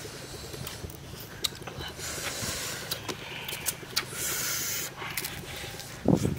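A charred, grilled whole fish being broken apart by hand: rustling, crackling handling noise with scattered clicks from the burnt skin and flesh tearing, then a loud bite into the fish near the end.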